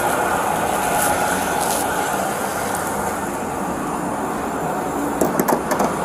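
Steady outdoor rumble with clothing rustling against a body-worn camera during a pat-down, and a few sharp clicks about five seconds in as small items are set down on a patrol car's hood.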